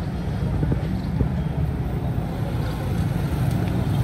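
Busy street ambience: a steady low rumble of motor traffic, with a few faint knocks.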